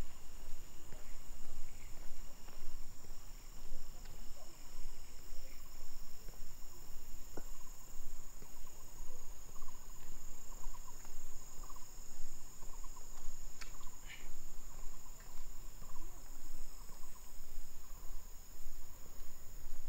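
Steady insect chorus: a continuous high-pitched buzzing of two even tones that does not let up.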